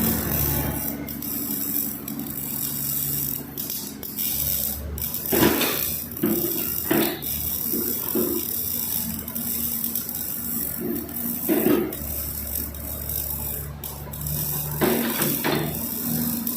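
Tata Hitachi 110 excavator's diesel engine running steadily, with repeated clattering knocks about five and a half, seven, eight, eleven and a half, and fifteen seconds in as the machine works.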